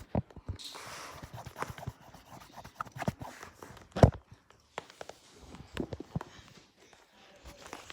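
Irregular clicks, taps and knocks of objects being handled, with one louder knock about four seconds in.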